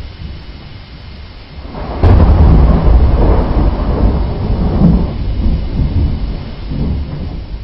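A close thunderclap that breaks suddenly about two seconds in, then rolls and rumbles loudly for several seconds before fading near the end.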